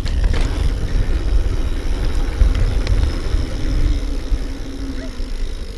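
Mountain bike riding down a dirt trail: a loud, steady low rumble of wind buffeting the on-bike camera's microphone and tyres rolling over the dirt, with a few light clicks and rattles from the bike.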